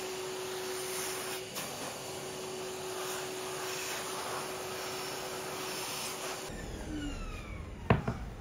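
A small electric machine runs steadily with a hissing whir and a constant hum. About six and a half seconds in it is switched off and winds down with a falling whine. Two sharp knocks follow near the end.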